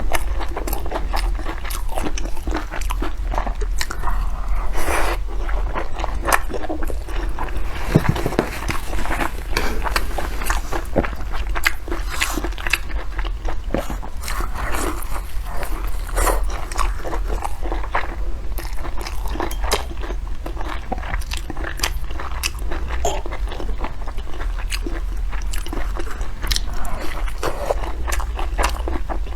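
A person biting and chewing food close to the microphone, with a steady run of irregular crunchy, moist clicks. A low steady hum runs underneath.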